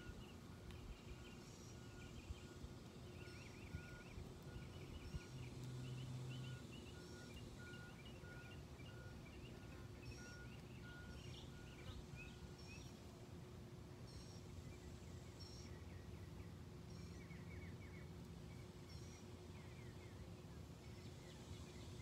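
Faint outdoor ambience of small birds chirping and twittering, with an evenly repeated faint peeping note through roughly the first half. A brief low hum comes about five seconds in.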